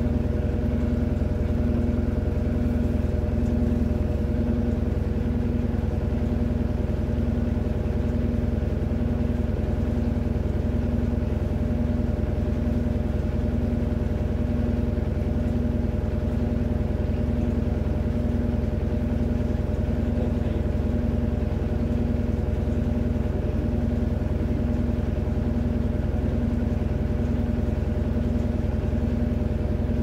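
Electrolux top-loading washing machine on its spin cycle, drum and agitator spinning a load of sneakers: a steady motor hum with a low drone that pulses about once a second.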